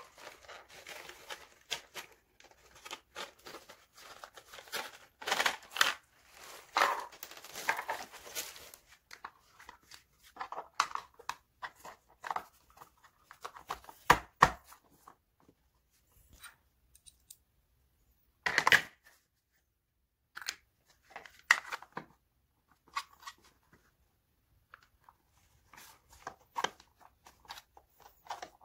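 Rustling and crinkling of foam packing sheet and plastic for the first several seconds. Then scattered clicks and knocks as the plastic parts of an Abko Hacker AGC30 gaming chair are handled and fitted during assembly, with one sharp knock about halfway through.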